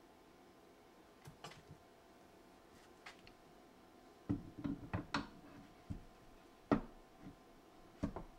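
Light clicks and knocks of metal parts being handled and fitted together on a Sanford SG benchtop surface grinder's vertical column during reassembly. A few faint ticks at first, then a quick cluster of knocks a little past the middle, followed by a few single knocks.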